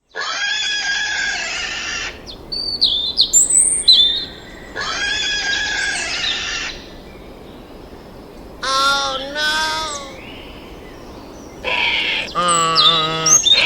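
A series of animal calls with bird chirps. Two long calls of about two seconds each come first, with quick high chirps between them, then shorter pitched calls, the last ones wavering in pitch.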